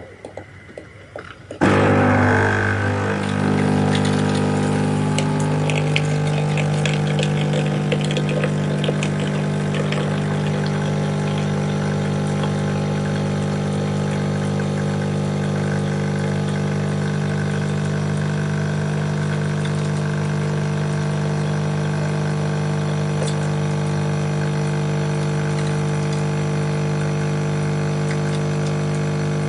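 A coffee machine's pump starts about two seconds in and runs with a loud, steady hum, with crackling and gurgling from the water for the first several seconds.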